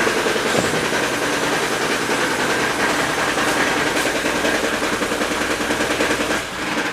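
Daewoo Sens 1.3-litre engine running with a rapid, steady knocking under the hood, a knock whose cause is unknown. The sound cuts off suddenly at the very end as the engine is switched off.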